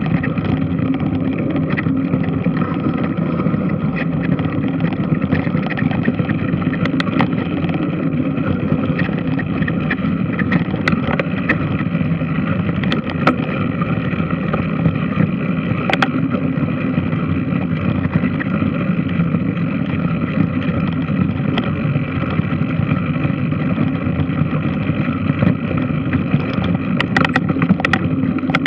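Large washing machine running: a steady mechanical drone with a motor-like hum, broken by occasional sharp clicks and rattles.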